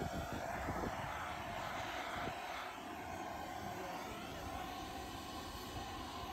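Handheld gas blowtorch burning steadily as its flame is played on a bronze sculpture's foot, heating the metal for a chemical patina.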